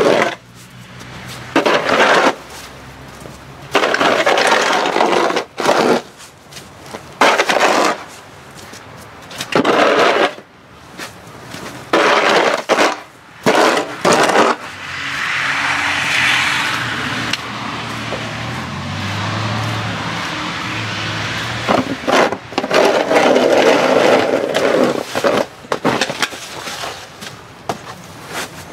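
Snow shovel scraping across asphalt and pushing wet, slushy snow, in repeated strokes every second or two. Midway a steadier rushing noise runs for several seconds.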